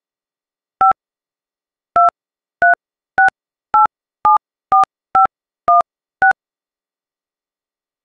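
Touch-tone keypad tones from a BlackBerry 8700g as a phone number is dialled: ten short beeps, each two pitches sounding together, keyed at an uneven pace of about two a second.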